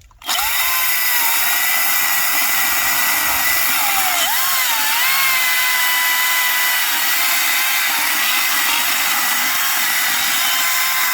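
Echo DCS-2500T 56 V brushless electric chainsaw starting up suddenly and cutting through a log. Its motor whine dips twice in pitch a few seconds in as the chain bites into the wood, then holds steady.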